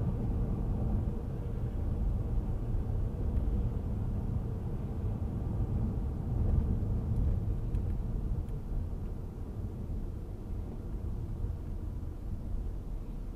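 Steady low rumble of a car driving on a snow-packed road, engine and tyre noise heard inside the cabin through a dashcam's microphone, easing slightly in the second half.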